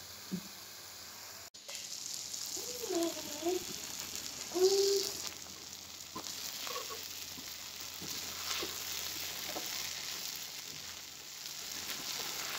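Food sizzling as it fries in a metal pot, with a metal spoon stirring through it: first chicken masala being bhuna'd, then, after a break about a second and a half in, rice and spices stirred into the hot pot.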